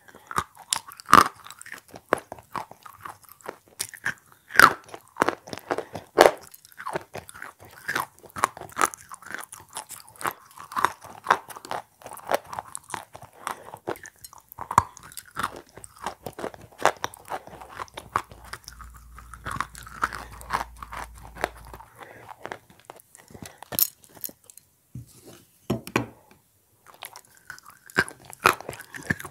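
Edible chalk coated in wet clay paste being bitten and chewed: a quick, irregular run of sharp crunches as the chalk breaks in the mouth, with a short lull about three quarters of the way through.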